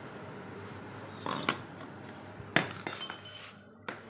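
Metal hand tools clinking several times, sharp clicks with a short ring, the loudest about two and a half seconds in.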